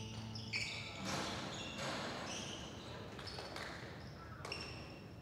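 Basketball being played on a gym court: sneakers squeaking in short high chirps over and over, with a few thuds of the ball bouncing.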